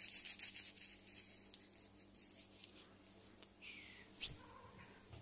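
Faint crinkling and rustling of a crumpled paper receipt, a quick run of small crackles over the first two seconds or so. Shortly before the four-second mark comes a short high falling squeak, then a single sharp knock.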